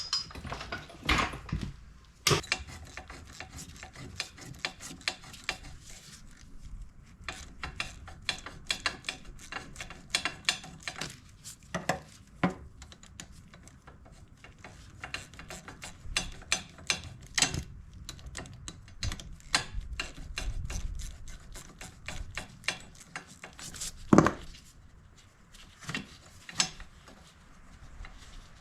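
Hand tools working on the exhaust fastenings of a Yamaha TTR90E dirt bike: runs of rapid clicking and scattered metal clinks and knocks, with one sharp knock near the end.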